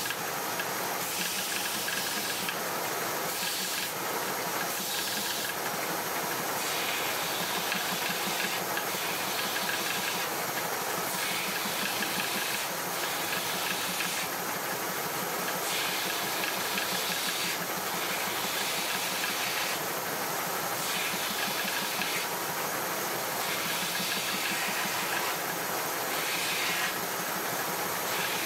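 Belt sander running, with a rasping rise every second or two as a small piece of wood is pressed to the moving belt.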